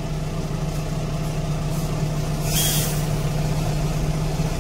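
Heavy diesel engine running steadily as the stuck grain semi tries to rock free in the snow, with a short hiss of air about two and a half seconds in.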